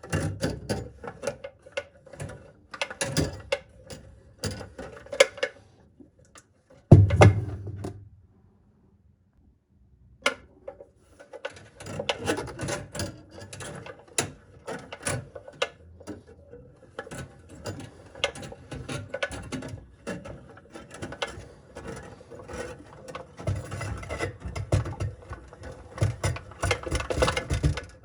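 Hand drain auger (plumbing snake) being twisted and fed into a clogged sink drain: its steel cable rattles and clicks against the drum and pipe. A loud knock comes about seven seconds in, then the rattling stops for about two seconds and resumes.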